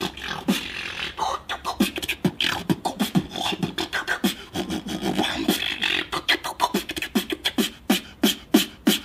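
A man beatboxing: a steady, fast rhythm of vocal kick-drum thumps with sharp clicks and hissing hi-hat sounds between them.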